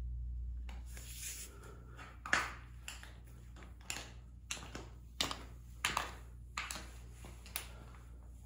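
Tap shoes stepping on a concrete floor as someone walks up: sharp metal clicks, one step about every two-thirds of a second with a little echo, over a steady low hum.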